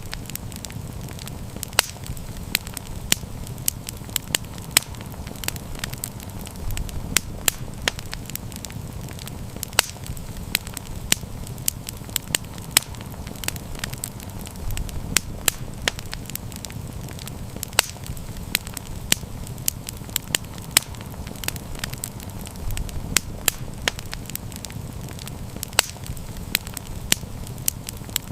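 Wood campfire burning, with frequent irregular sharp crackles and pops over a steady low rumble of flame.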